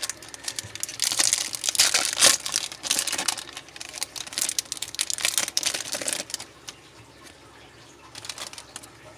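Foil wrapper of a 2019 Topps Chrome baseball card pack crinkling and tearing as it is opened by hand, busy for about five seconds. After that it goes quieter, with faint rustling as the cards are slid out near the end.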